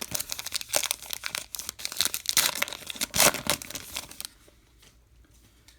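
Baseball card pack wrapper being torn open and crinkled, a dense crackling for about four seconds.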